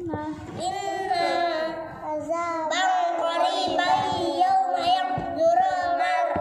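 Children's voices reciting Arabic Quranic verses aloud in a chanted, sing-song melody, as in tartil recitation.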